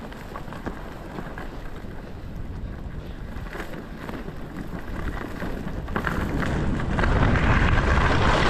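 Wind rushing over the microphone during a downhill ski run, with skis hissing and scraping over snow; the hiss grows louder about six seconds in.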